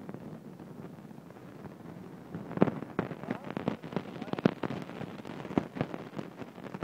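Choppy sea water slapping and knocking against a kayak hull. A run of irregular sharp slaps, several a second, starts about two and a half seconds in over a steady wash of water.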